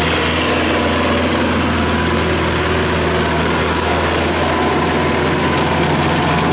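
Kubota L5018 tractor's diesel engine running steadily while it pulls a rotary tiller through the soil.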